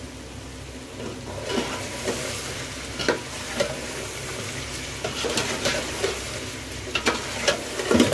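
Chicken pieces in masala being stirred and sizzling in a pot on the heat, starting about a second in, with a slotted metal spatula scraping and knocking against the metal pot several times; the loudest knock comes near the end.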